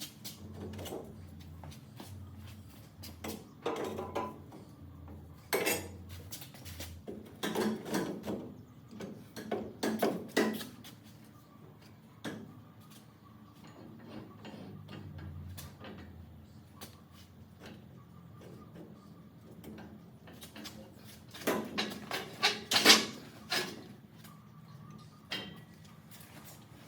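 Irregular knocks and clatter of exhaust parts and tools being handled during an exhaust fitting, with a louder run of sharp knocks about three quarters of the way through.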